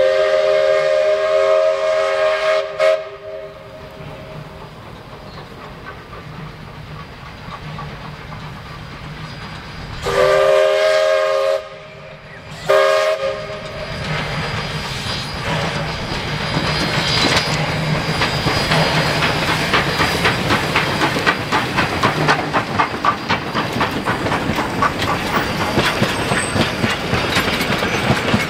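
Queensland Railways C17 class steam locomotive no. 967 sounding its chime whistle: one long blast, then about ten seconds later another long blast followed by a short toot. The train then runs past close by, its carriage wheels clicking rapidly over the rail joints, growing louder near the end.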